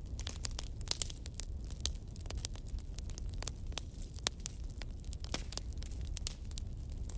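Small knife cutting through a crisp apple held in the hand: irregular sharp clicks and crunches, over a steady low hum.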